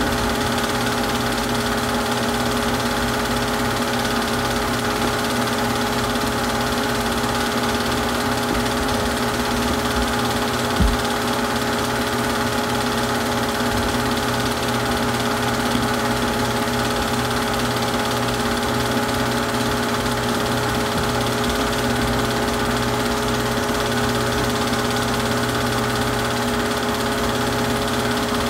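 Super 8 film projector running: a steady motor hum and whir from the mechanism, with one short click about eleven seconds in.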